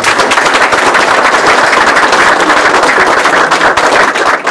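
A group of people applauding: dense, steady clapping.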